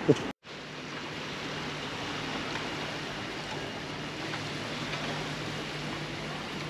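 Steady wash of surf on a sandy beach, with a faint low hum underneath that fades near the end. A short sharp knock right at the start, then the sound cuts out for a moment.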